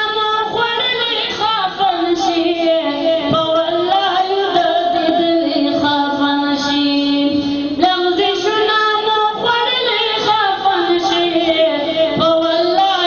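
A single high voice singing a slow devotional chant, with long held notes that bend and ornament between pitches.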